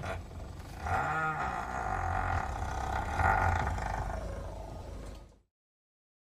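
Infant Tyrannosaurus rex cry from The Lost World's sound effects: a long, wavering roar of about four seconds that starts about a second in and cuts off about a second before the end.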